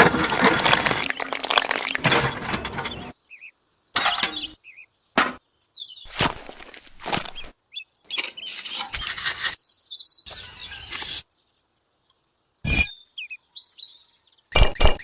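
A choppy string of short clatters and knocks broken by sudden silences, with a few faint bird chirps between them. Near the end comes a fast, even run of knocks, about four a second.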